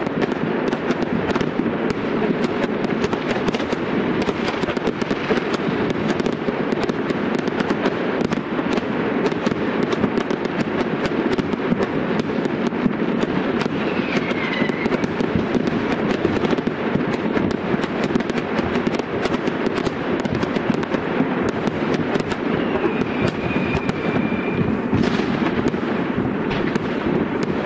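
Fireworks going off in a dense, unbroken crackle of many rapid small bangs. There is a short falling whistle about halfway through and a longer, steady whistle near the end.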